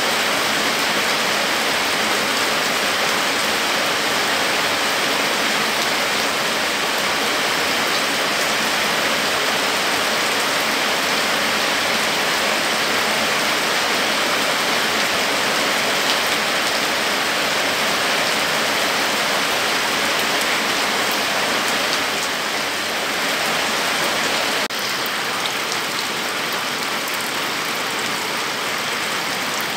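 Heavy, steady downpour of rain on foliage and a muddy dirt road, a dense even hiss. The level drops a little and suddenly about 25 seconds in.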